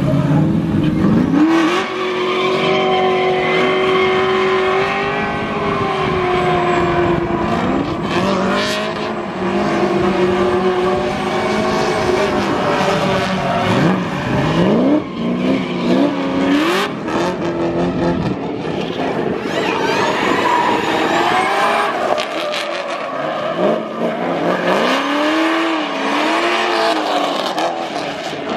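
Drift car engines revving hard, pitch rising and falling over and over as the throttle is worked, with tyres squealing and skidding as the cars slide sideways and spin.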